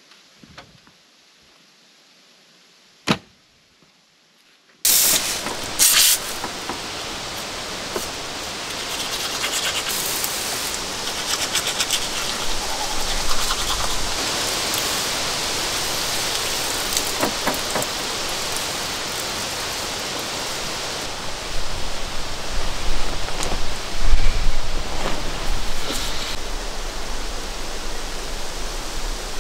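Near silence with a single click about 3 s in. Then a steady rushing hiss of wind through quaking aspen leaves starts abruptly about 5 s in, swelling in louder gusts near the end.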